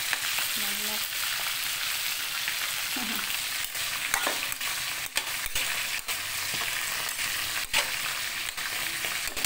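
Mushrooms, diced carrots and potatoes sizzling steadily in a hot wok as a spatula turns them, with occasional sharp scrapes and knocks of the spatula against the pan.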